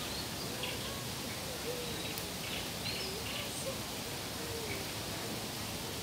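Outdoor garden ambience: a steady background hiss with faint bird calls now and then.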